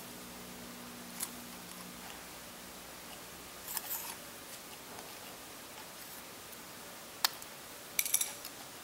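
Small flat-blade screwdriver prying an aluminium-core LED board out of a plastic LED bulb housing: scattered light clicks and scrapes of metal on metal and plastic. A sharp click comes about seven seconds in, then a quick rattle of clicks near the end as the board comes loose.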